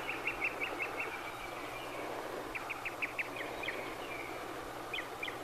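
Outdoor background of high, rapid chirping, heard in three short runs over a steady hiss.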